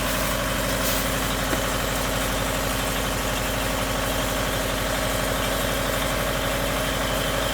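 An engine idling steadily, with an even pulsing beat.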